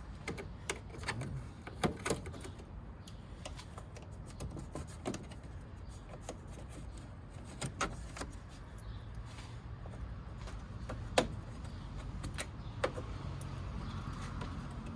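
Irregular clicks, snaps and knocks of large plastic push-in retainer clips being worked loose and pulled out of a plastic engine-bay cover panel. The sharpest snap comes about 11 seconds in, and a low steady hum joins about 9 seconds in.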